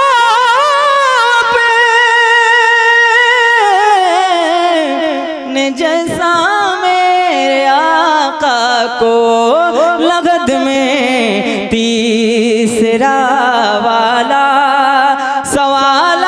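A young man singing a naat solo into a microphone, holding long notes with vibrato and ornamented runs that wind up and down.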